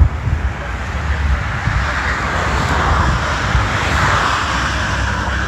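Benelli 600GT's 600 cc inline-four engine running, heard close to its exhaust, with a steady mechanical hiss that swells a little through the middle.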